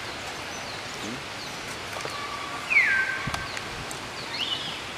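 Outdoor ambience with a steady hiss and a few short, high-pitched animal calls. The loudest comes a little past halfway: it slides down in pitch, then holds steady for about half a second. A shorter call follows near the end.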